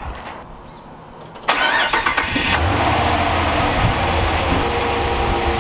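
The 2013 Ram 1500's Hemi V8 starting: about a second and a half in, the starter cranks briefly, the engine catches, and it settles into a steady idle.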